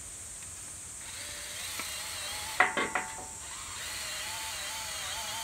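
Cordless drill boring into timber, its motor whine wavering in pitch, with a short rattle of sharp clicks about two and a half seconds in.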